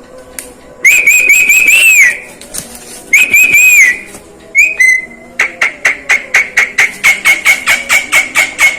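Javan myna (jalak kebo) whistling: two loud warbling whistles, then a short note, then a fast run of sharp notes, about five a second, over a steady held whistle.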